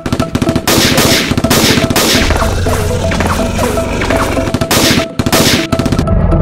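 Rapid automatic-gunfire sound effects, many shots a second in long bursts with two brief breaks, over background music.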